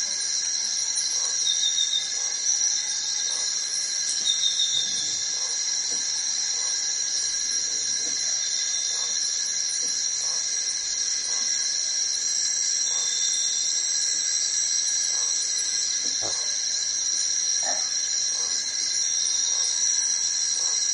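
A steady chorus of forest insects, several high tones layered together without a break.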